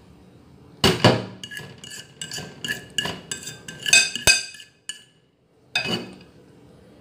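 Metal kitchenware clattering and clinking as cake batter is emptied from a mixing bowl into a stainless steel pan: a loud clatter about a second in, then a quick run of ringing clinks and a sharp knock just after four seconds. One more clank comes near the end.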